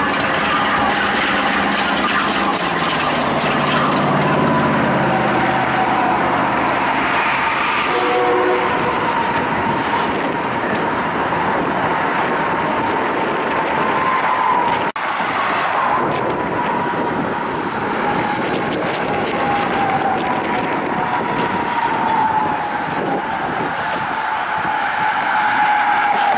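Canadian Pacific freight train passing close below. A diesel locomotive's engine drones past in the first several seconds, falling in pitch. The covered hopper cars then roll by with a steady rumble and a thin whine that slowly drops in pitch.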